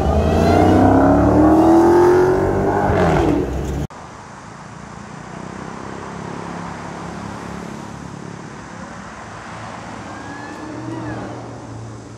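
A Dodge Challenger SRT Demon's supercharged 6.2-litre V8 accelerating hard and loud, its pitch climbing for about three seconds, then dropping. It cuts off suddenly, leaving steady, quieter city traffic noise with cars passing.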